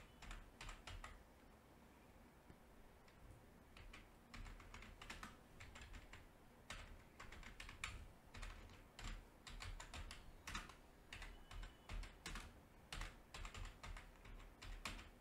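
Faint typing on a computer keyboard: irregular runs of quick keystroke clicks.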